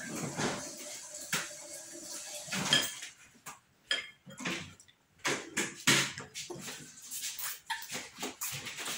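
A child eating noodles: small clicks and taps of a plastic spoon against a bowl, with chewing and slurping mouth sounds, quieter for a moment about halfway through.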